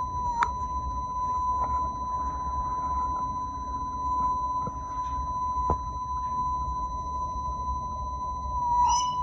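A steady high-pitched whine held on one pitch, with a low rumble beneath it: the buzzing that the uploader puts down to a UFO overhead. There are two sharp clicks, about half a second in and near the six-second mark, and the tone wavers briefly just before the end.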